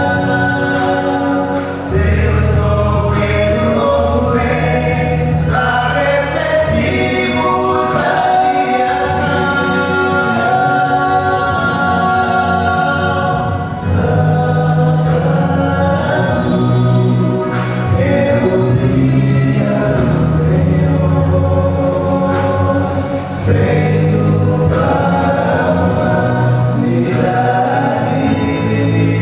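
Male vocal quartet singing gospel in close harmony through microphones, with a deep bass line under the upper voices.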